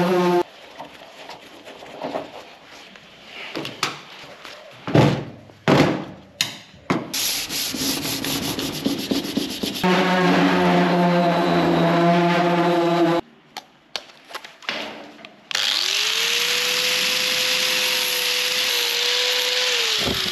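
Bodywork power tools on sheet metal in short edited bursts: an electric drill running at a steady pitch, knocks and scraping, a second drill run, then a power sander spinning up, sanding with a hiss for about five seconds and winding down near the end.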